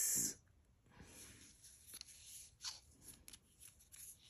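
Faint rustling and light clicks of small jewelry pieces being handled and sorted by hand.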